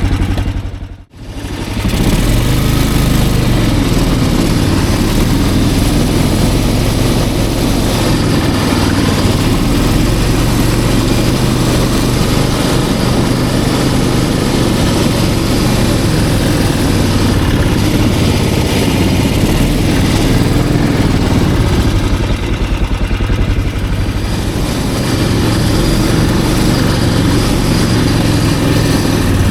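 Snowmobile engine running steadily under way, with a brief gap about a second in.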